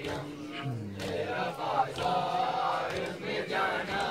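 Group of men chanting a mourning lament in unison, with rhythmic slaps of hands on chests (matam) about once a second.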